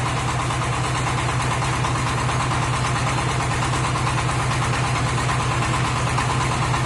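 Portable double-cylinder hydraulic water-well drill rig running steadily under power as the drill rod turns and feeds down into the hole with flushing water.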